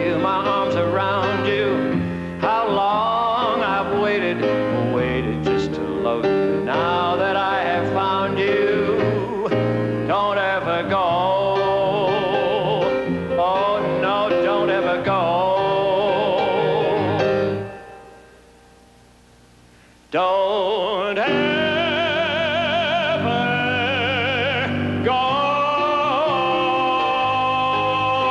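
Music with singing: a sung ballad with accompaniment fades out about two-thirds of the way through. After a brief quiet gap, another song begins, with long sung notes held with vibrato.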